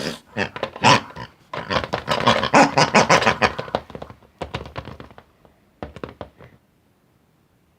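Pig oinking in a quick run of short calls, loudest a couple of seconds in, thinning out and stopping about six and a half seconds in.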